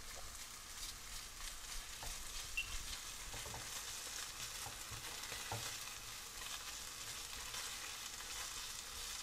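Diced potatoes and tomato paste frying in a nonstick pan, with a faint, steady sizzle as a spatula stirs and scrapes through them. A few soft knocks of the spatula against the pan come around the middle.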